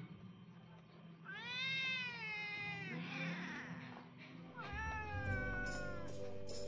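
Domestic cat giving two long, drawn-out meows: the first about a second in, rising and then falling, the second just past the middle, starting high and sliding slowly down.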